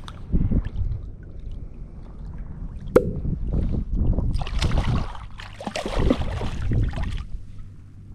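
Wind rumbling on the microphone over water sloshing around a wading angler, with a sharp click about three seconds in and a stretch of splashing from about four and a half to seven seconds.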